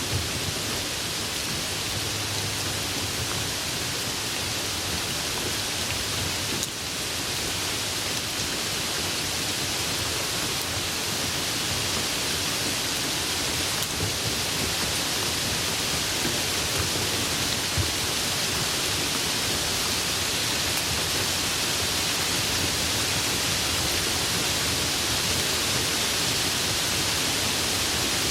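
Light rain falling steadily, an even hiss of many drops, with a brief dip in level about seven seconds in.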